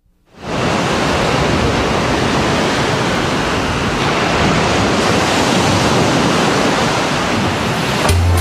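Ocean surf washing onto a beach, a steady rushing that fades in about half a second in. Music starts just before the end.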